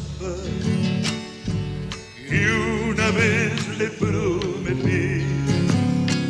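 Live Argentine folk music: two acoustic guitars played together, with a male voice singing with wide vibrato that comes in louder a little over two seconds in.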